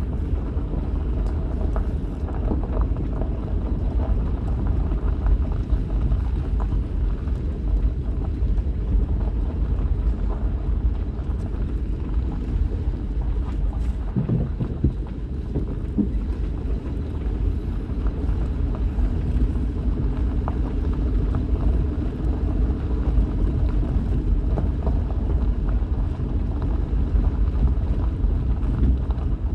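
Vehicle driving slowly along a rough forest road: a steady low rumble of engine and tyres, with scattered light clicks and knocks.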